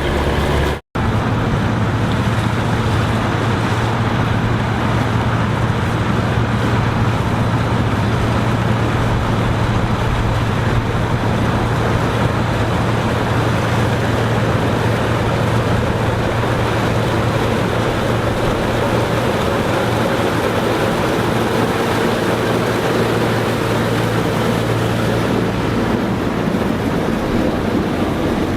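Engine of old farm machinery running steadily under a wash of mechanical noise, with a low, even hum. The sound cuts out for an instant about a second in, then carries on unchanged.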